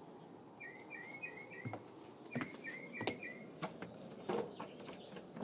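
A small bird chirping: two quick runs of four short chirps, a second or so apart, with scattered faint clicks and knocks.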